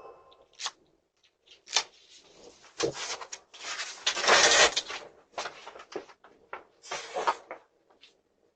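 Irregular knocks, clicks and clatter at a front door, with a longer noisy rush about four seconds in, picked up by a Ring video doorbell's microphone.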